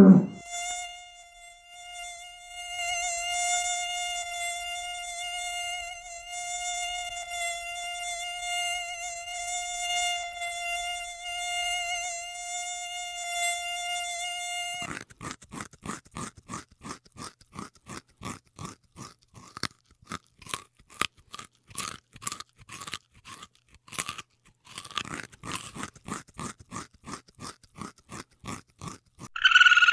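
Insect wings buzzing in a steady, pitched hum for about fifteen seconds, then a fast train of short rasping pulses, several a second, with a brief break in the second half.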